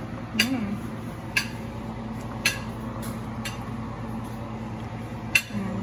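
Kitchen stove sounds: a steady low hum with a light click or tap about once a second, over a pot of potatoes at a hard rolling boil.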